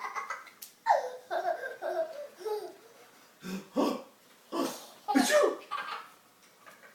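A small child laughing hard alongside an adult's laughter: a falling run of giggles about a second in, then several shorter bursts of laughter.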